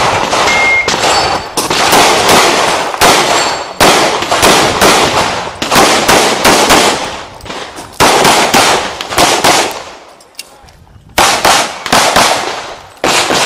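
Semi-automatic pistol fired in fast strings of shots during a practical shooting stage. Each shot is a sharp crack with a short echo. About ten seconds in there is a pause of roughly a second, then two more quick strings.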